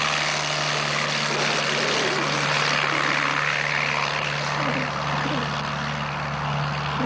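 Piper Cherokee single-engine light aircraft at full power on its takeoff run, a steady engine-and-propeller drone that eases a little as the plane draws away.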